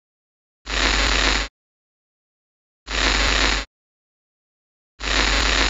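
Three harsh bursts of static-like noise, each just under a second long, repeating about every two seconds with dead silence between them.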